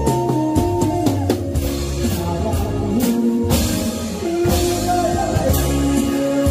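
Drum kit played live, with cymbal crashes, over backing music, while a man sings into a microphone.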